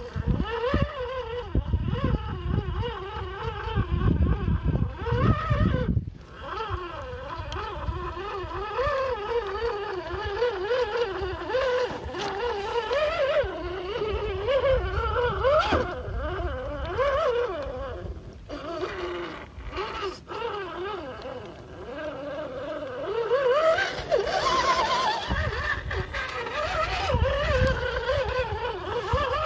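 Electric motor and gearbox whine of an RGT EX86100 V2 RC crawler as it churns through mud and water. The pitch wavers up and down constantly with the throttle. A heavy low rumble runs under it for the first six seconds, and the sound breaks off abruptly a few times.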